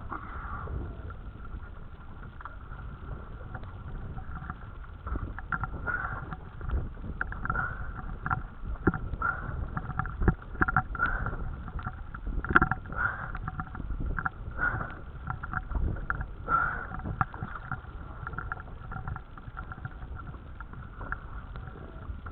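Small dinghy rocking at anchor on a choppy sea: water slapping and knocking against the hull, with wind rumbling on the microphone. A faint steady high hum runs underneath.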